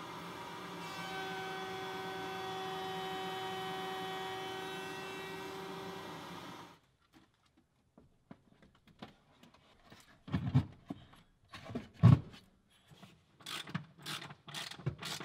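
Table-mounted router running with a steady whine while trimming the edge of a plastic mount, cutting off suddenly about seven seconds in. Then scattered clicks and knocks of hardware as amplifiers are fastened down, getting busier near the end.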